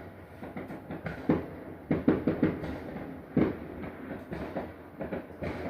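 Neighborhood fireworks going off: a string of dull bangs and pops, several in quick succession about two seconds in, then single ones.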